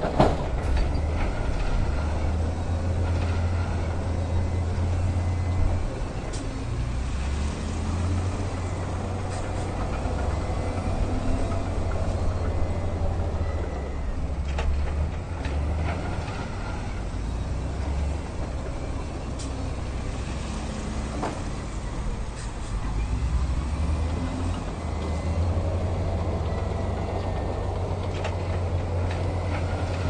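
Heavy diesel machinery running with a steady low rumble, its engine pitch rising and falling at times, and a few scattered clanks. There is a sharp knock right at the start.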